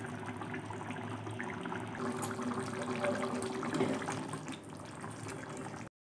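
White-pea and potato curry simmering at a boil, many small bubbles popping and crackling, over a steady low hum. The sound cuts off abruptly near the end.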